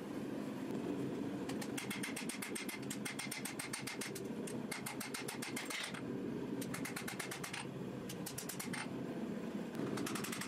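Rapid, evenly spaced hammer blows on red-hot forge-welded ball-bearing steel against an anvil, drawing out a knife blade. The blows come several a second in runs of a few seconds with short pauses between, over a steady low roar.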